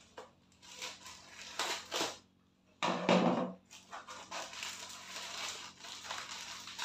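A thin plastic courier mailer crinkles and crackles as it is cut with scissors and pulled open by hand. It comes in a few short bursts, with a louder one about three seconds in, then turns to near-continuous crackling in the second half.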